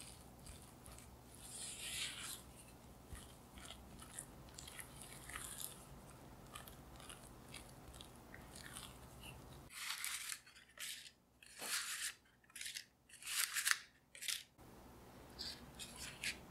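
Silicone spatula folding thick, wet muffin batter in a glass bowl: a run of soft squelching and scraping strokes, louder and more spaced out in the middle few seconds.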